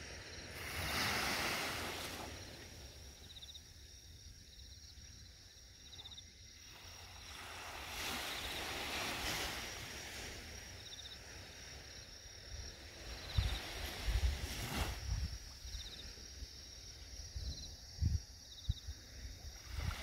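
Small waves washing gently onto a sandy beach, each wash swelling and falling away every few seconds. Autumn insects chirp faintly: short high pulses over a steady thin trill, and wind knocks on the microphone a few times near the end.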